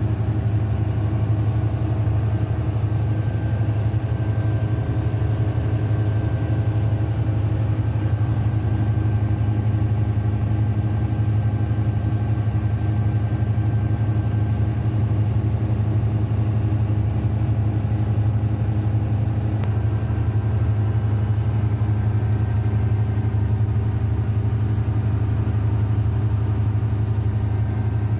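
Denyo DCA610SPM diesel generator engine running steadily at constant speed, a low even drone with no change in pitch. The generator is running again after its no-start fault was fixed.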